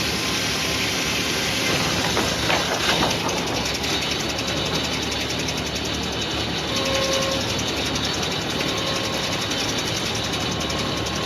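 Sawmill running with a steady mechanical din and a faint whine, with a brief rattle about two and a half seconds in.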